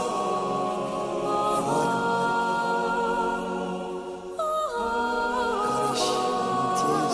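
Stage-show music: voices singing long held chords, the chord shifting about a second and a half in and again around four and a half seconds in.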